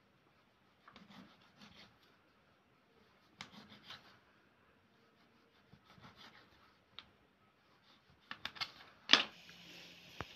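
Kitchen knife cutting a log of stiff dough into pieces on a ceramic plate: quiet, short scrapes and taps of the blade against the plate, in small clusters every second or so, with a sharper knock near the end.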